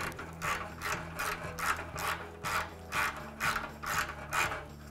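Ratcheting wrench clicking in repeated strokes, about two a second, as an exhaust hanger bolt is backed out.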